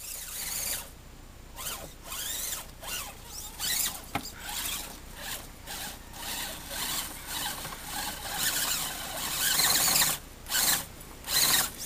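Axial SCX10 RC rock crawler's electric motor and gear drive whining in repeated short bursts that rise and fall in pitch as the throttle is worked over loose bricks. A single sharp knock about four seconds in.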